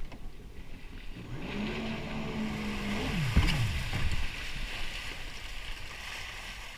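Yamaha jet ski engine speeding up to a steady pitch for about a second and a half, then dropping away quickly as the throttle is let off. There is a single sharp knock midway, followed by a rushing hiss.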